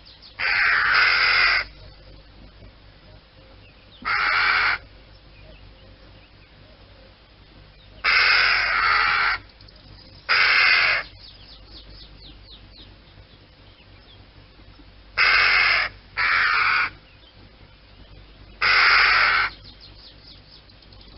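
Common raven calling: seven loud croaks a few seconds apart, some coming in close pairs, each lasting about a second.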